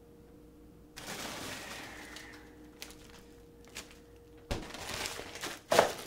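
Plastic freezer bags rustling as a bag of frozen chicken is pulled out of a freezer, with a few light clicks. About four and a half seconds in there is a sharp thud as the freezer door is pushed shut, then the plastic bag crinkles and a loud clunk near the end comes as the frozen chicken is tipped into a metal stockpot.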